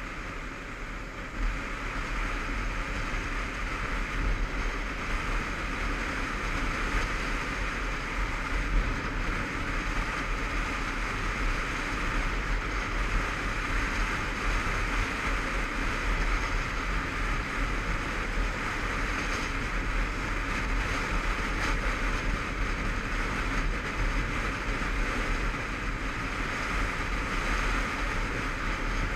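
Steady wind rush over a helmet-mounted camera, with a Honda CBF500 motorcycle's 500 cc parallel-twin engine running beneath it as the bike cruises at a steady speed.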